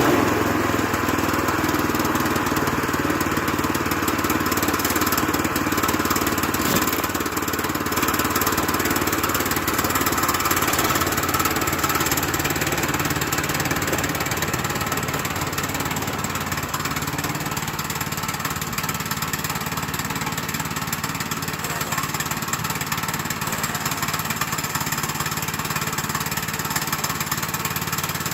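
Woodland Mills HM122 portable band sawmill running steadily, its gas engine driving the band blade through a pine log.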